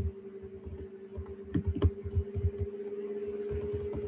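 Typing on a computer keyboard: irregular key clicks as a text caption is typed in, over a steady low hum.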